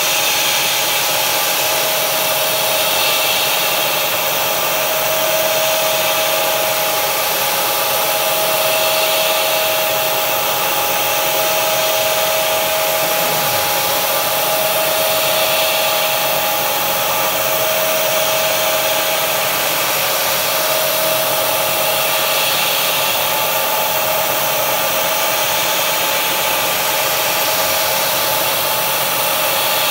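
Steady hiss of a mist coolant sprayer blowing onto a carbide end mill while a CNC mill runs a roughing pass, with a whine from the cut that fades in and out.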